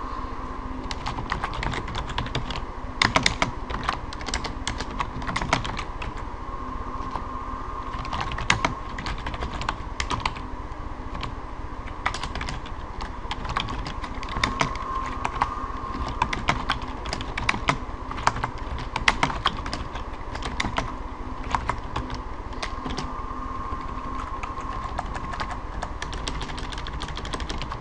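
Computer keyboard typing: irregular runs of keystrokes with short pauses, over a faint steady hum.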